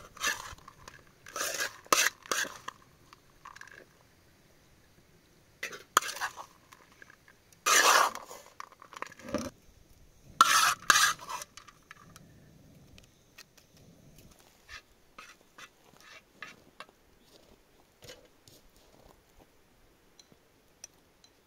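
A metal spoon scraping and clinking against metal cooking pots and a dish as the tah chin layers are spooned in. The sound comes in loud irregular bursts over the first dozen seconds, then thins to a few light clicks.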